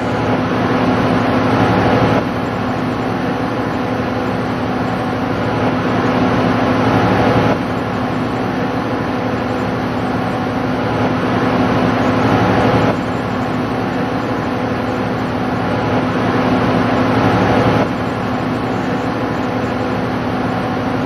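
Automated pipe spool welding machine running: a steady hiss with a steady hum under it. The overall level drops a little and then climbs again about every five seconds.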